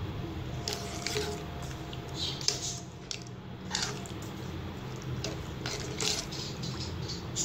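Plastic spoon stirring a watery tamarind mixture in a non-stick pan: irregular wet squelches and light scrapes of the spoon against the pan.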